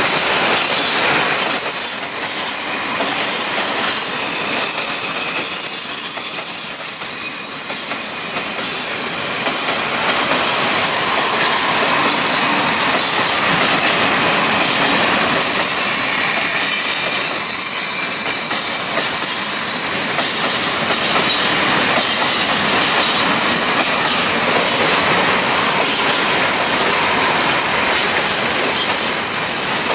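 Freight train of bulk hopper wagons rolling past close by: steady rumble of wheels on rail, with a steady high-pitched wheel squeal that sets in about a second in and holds.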